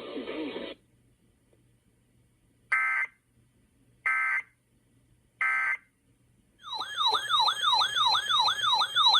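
Emergency Alert System signals: three short bursts of buzzy digital data tones, about a second and a half apart, then a loud siren-like warbling attention tone that starts about two-thirds of the way in, sweeping up and down several times a second.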